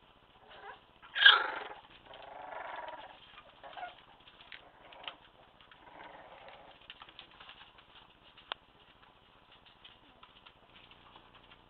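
Month-old Staffordshire bull terrier puppies play-fighting: one loud short yelp about a second in, then softer bouts of puppy vocalising, and a single sharp click past the middle.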